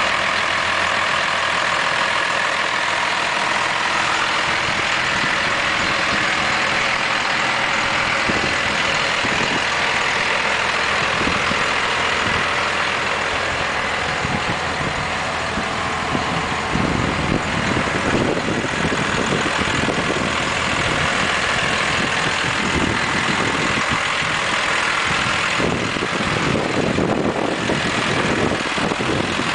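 The 1997 Dodge Ram 2500's 5.9-litre Cummins turbo diesel idling steadily.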